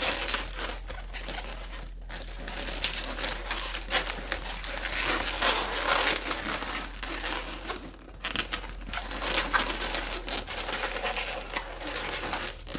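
Latex modelling balloons (260s) rubbing against each other and against the hands as they are twisted and wrapped, a continuous scratchy rubbing with short quieter gaps.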